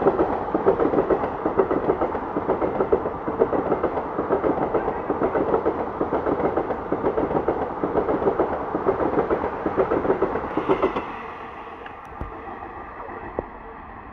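Passenger coaches of an express train running through at speed, their wheels clattering rapidly and rhythmically over the rail joints. About eleven seconds in the sound drops suddenly to a much fainter steady rumble.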